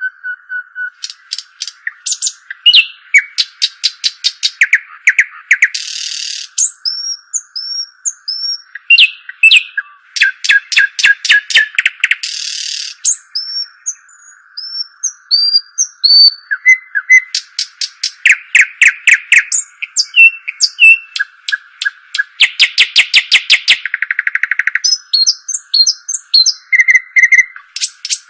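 A small songbird, the 'dakhl', singing continuously: rapid trills, buzzy rattling phrases and short downslurred chirps, phrase after phrase. A steady hum runs beneath.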